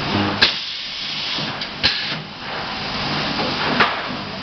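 Radiator factory floor noise: a steady hiss from production-line machinery, broken by three sharp knocks.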